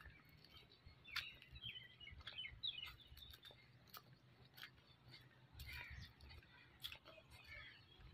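Near silence with faint, scattered bird chirps and a few soft clicks.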